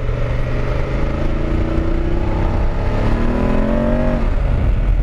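BMW F850GS Adventure's parallel-twin engine pulling hard under throttle on a loose dirt road, its note rising for about two seconds and then falling away just after four seconds in. There is a steady rush of road and wind noise throughout, on a surface where the rear tyre slips and spins under throttle.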